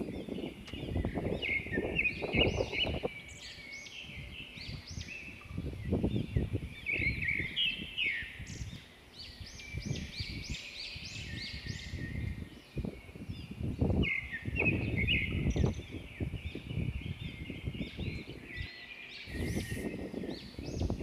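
Many birds chirping in quick, overlapping calls, with gusts of wind buffeting the microphone in uneven surges.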